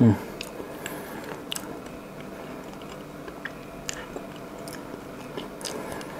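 Close-miked mouth sounds of a person chewing soft cheesecake, with scattered small wet clicks. At the very start there is a brief, loud, low sound that falls in pitch.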